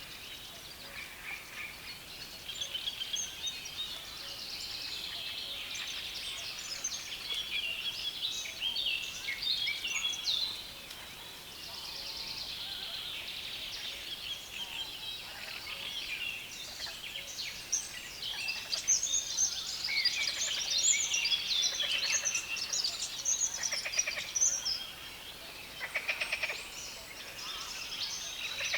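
Dense chorus of birds singing from a reed bed: many overlapping scratchy, chattering songs at once, louder and busier in the second half.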